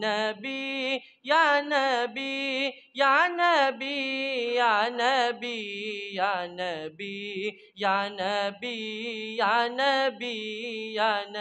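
A young male voice singing a naat in long drawn-out melodic phrases, the pitch bending and wavering through each held note, with brief pauses for breath.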